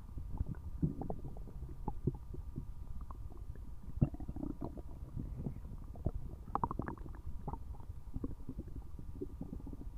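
Human stomach rumbling and gurgling loudly: a continuous low rumble with many irregular quick gurgles and pops, a sharp pop about four seconds in and a cluster of higher gurgles near seven seconds.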